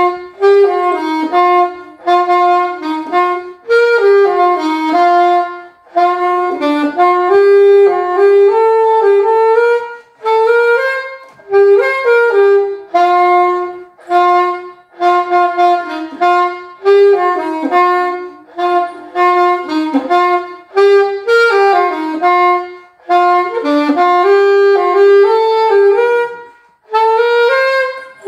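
Solo alto saxophone playing a slow melody of held notes, in short phrases with brief breaks between them.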